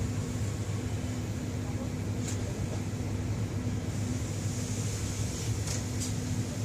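Inside a moving passenger train: a steady low rumble with an electric hum, and a few faint clicks, about two seconds in and again near the end.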